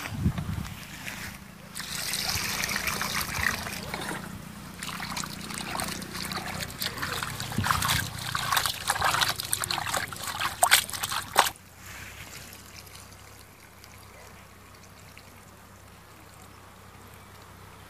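Hands squeezing and rubbing raw chicken pieces in water in a steel bowl: wet squelching and splashing with sharp clicks against the metal, stopping suddenly a little past halfway.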